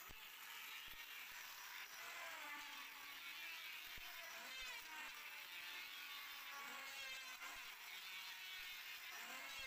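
Electric hand planer running with a high whine as its blades shave the face of a wooden board, the pitch dipping and recovering as it takes the cut.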